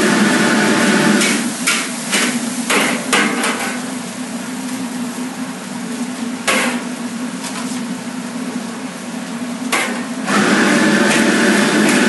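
Commercial gas wok burner running with a steady loud rush while a metal ladle clanks and scrapes against the steel wok as fried rice is stir-fried. The rush drops back about a second in, with a cluster of sharp clanks over the next couple of seconds and a few more later, and comes back loud near the end.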